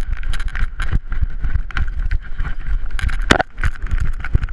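Body-mounted action camera jostling on a running puppy's harness: a quick, irregular run of knocks, scuffs and rubbing, with wind rumble on the microphone and one louder knock about three seconds in.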